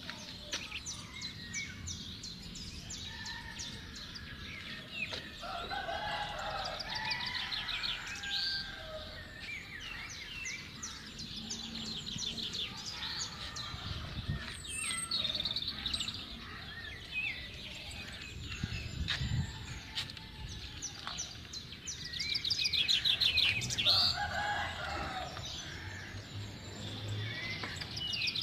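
Small birds chirping and twittering in quick trills throughout, busiest and loudest near the end, with chickens calling a couple of times.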